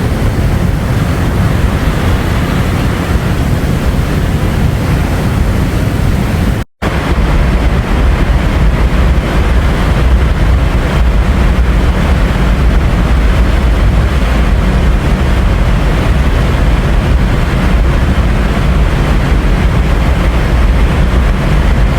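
Ocean waves and surf rushing steadily, with a heavy low rumble of wind on the microphone. The sound cuts out completely for an instant about seven seconds in, and the low rumble is stronger after that.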